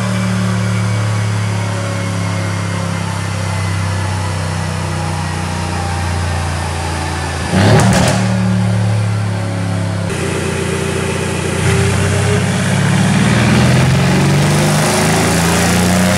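Twin-turbo V8 of a stage-2-tuned, catless Mercedes-AMG C63 S running loud through its decatted exhaust, holding a steady engine speed. About halfway through it gives a sudden loud burst. In the last few seconds the revs rise and fall.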